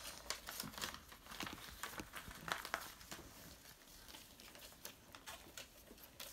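Paper rustling and crinkling as a Lego instruction booklet is flipped and unfolded by hand: a faint, uneven string of crackles and light taps.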